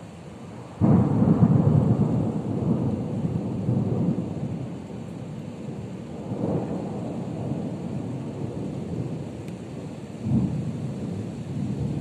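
Thunder: a loud peal breaks suddenly about a second in and rolls on as a long rumble. The rumble swells again around six seconds and once more near ten seconds.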